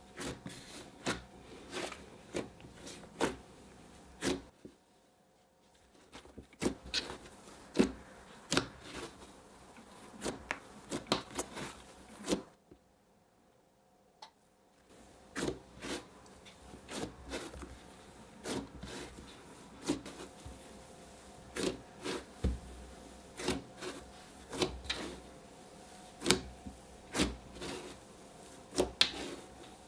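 Hands squishing, poking and stretching cloud slime, making irregular sticky clicks and small pops, with two short pauses.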